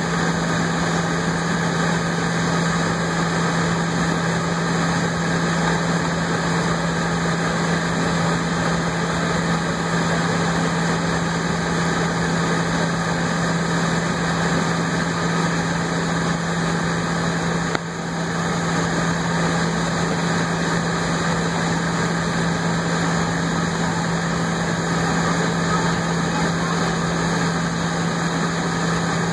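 Steady cabin noise of a jet airliner taxiing with its engines at idle, a constant low hum under an even rushing sound heard from inside the cabin. A short click about eighteen seconds in, after which it is briefly a little quieter.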